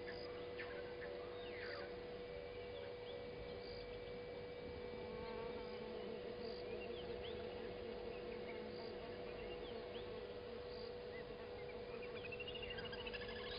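Steady, even-pitched insect drone with scattered short bird chirps, and a bird's rapid run of repeated descending notes starting near the end.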